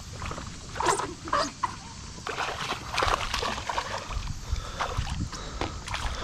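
A hooked bass thrashing at the water's surface on the line, a few short splashes followed by a longer stretch of splashing.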